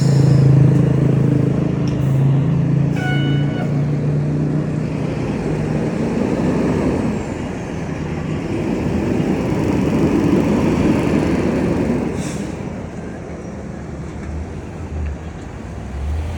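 A large vehicle's engine running outdoors, with a steady low hum that fades after about four seconds and a rumble that swells around the middle and eases off near the end. A short click comes about three seconds in.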